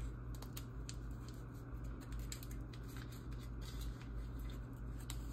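Seasoning shaken from a small paper packet onto raw fish fillets: scattered light ticks and crinkles, over a steady low hum.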